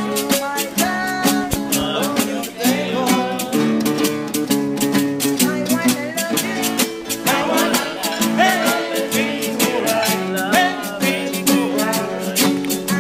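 A song with strummed acoustic guitar, a steady beat and a singing voice.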